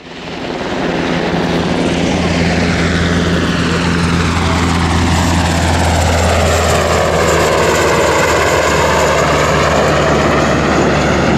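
Jet aircraft engines roaring through a takeoff and climb-out. The roar sweeps in pitch as the aircraft passes, over a steady low hum.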